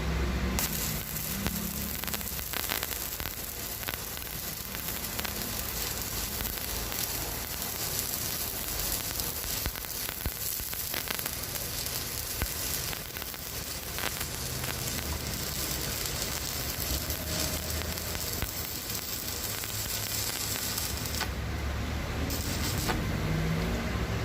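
Stick-welding arc from an inverter welder, a steady crackling sizzle with sharp pops as the electrode burns. The arc starts about half a second in and breaks off near the end, with a short flare just before it stops. A low hum runs underneath.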